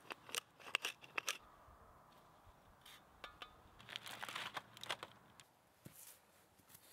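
A wooden pepper mill grinding, a quick run of crunchy clicks in the first second and a half. About four seconds in, aluminium foil crinkles for about a second as it is handled.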